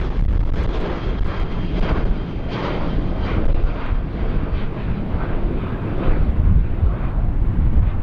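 Jet engines of a Boeing 737 airliner climbing away after takeoff: a loud steady rumble with irregular crackling. The upper hiss slowly thins as the plane draws away.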